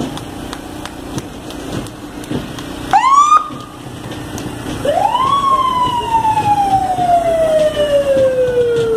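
Fire truck siren: a short loud whoop about three seconds in, then it winds up again and slides slowly down in pitch over the last four seconds. Vehicle engines run underneath.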